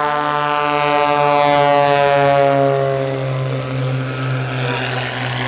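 Piston-engined propeller aerobatic plane diving past, its engine note falling in pitch as it goes by, loudest about two seconds in. A steady low hum runs underneath.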